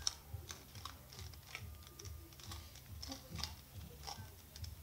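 Plastic bandaged 3x3 twisty-puzzle cube, an Isaev's Fused Bi-Clock, clicking as its layers are turned one after another: a string of light, irregular clicks, a few each second.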